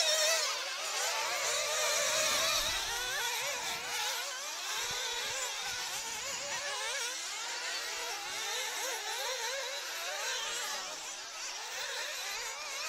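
Several 1/8-scale nitro buggies' small two-stroke glow engines buzzing at high revs. Their overlapping pitches rise and fall continually as the cars accelerate and brake around the track.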